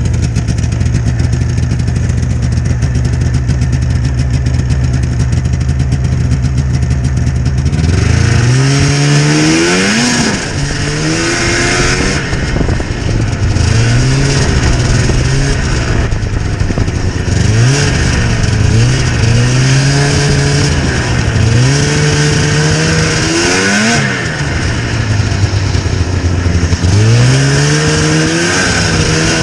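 1998 Yamaha V Max 500 XT snowmobile's twin-cylinder two-stroke engine idling steadily for about eight seconds, then revving up as the sled pulls away and rides on, its pitch climbing and dropping again and again with the throttle.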